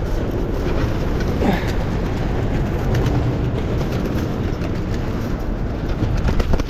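Many feral pigeons flapping and fluttering their wings at once in an enclosed bin, a dense continuous clatter of wingbeats as the flock tries to escape.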